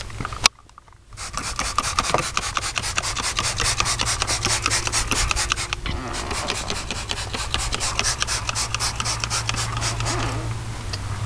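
Hand-pumped trigger spray bottle squirting cleaner onto truck floor carpet, a fast run of short hissing sprays starting about a second in, over a steady low hum. A single sharp click comes about half a second in.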